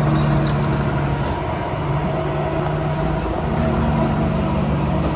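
Low, steady engine hum of a motor vehicle, holding one pitch over a rushing background noise.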